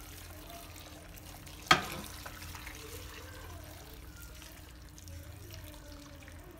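Water pouring steadily from a metal kettle onto herbs and mushrooms in a stainless-steel stockpot, with one sharp clink a little under two seconds in.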